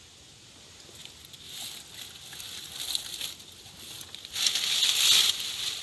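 Leaves and undergrowth rustling and crackling as a hand pushes into the brush. It starts faintly about a second in, grows in uneven bursts, and is loudest near the end.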